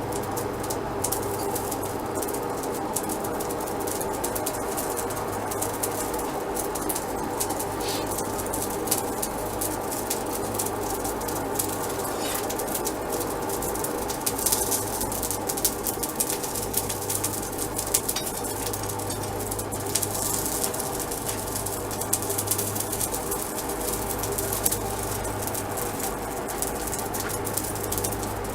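A steady machine hum with several fixed tones, under irregular crackling clicks.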